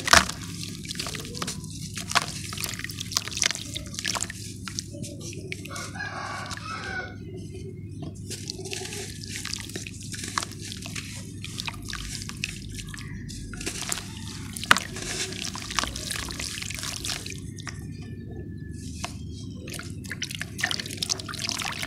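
Wet ash blocks crushed and crumbled by hand in a tub of water: dense crunching and crackling with drips and splashes throughout.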